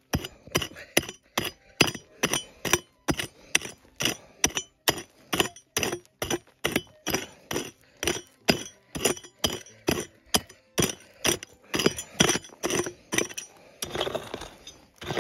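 A digging pick striking stony, gravelly ground over and over, about two or three sharp clinking strikes a second. Near the end the strikes give way to longer scraping of dirt and stones.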